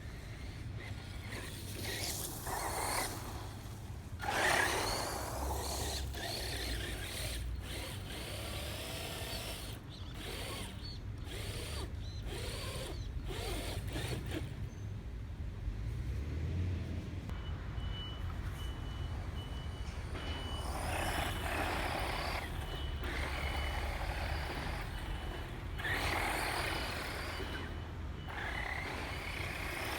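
FTX Viper RC car driving off-road, its motor whine rising and falling in spells as it speeds up and slows, with sharp knocks and a steady low rumble underneath.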